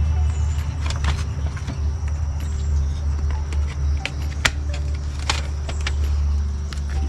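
Scattered clicks and light clatter of plastic trimmer parts and tools being handled during reassembly, over a steady low hum.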